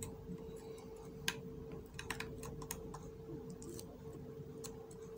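Faint, scattered clicks and taps of small hard parts being handled at an open laptop's M.2 SSD slot, about six in all, over a steady faint hum.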